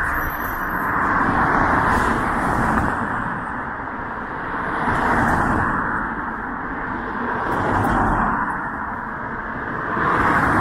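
Road traffic: cars passing one after another, the tyre and engine noise swelling and fading every few seconds.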